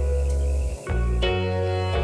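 Instrumental background music of sustained, held chords, moving to new chords about a second in after a brief dip.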